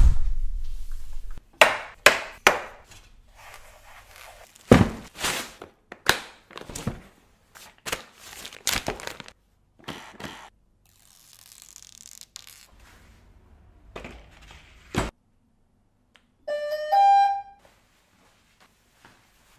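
A string of sharp clicks, snaps and knocks as the folding arms of a DJI Agras spray drone are swung out and latched, followed near the end by a short run of rising electronic beeps.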